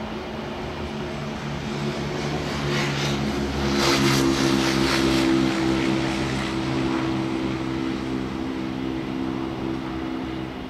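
Taipei Metro electric train pulling slowly out of the depot, its traction motors humming in several steady tones. A run of wheel clatter and hiss from the track builds about two seconds in and is loudest around four to five seconds in, then fades.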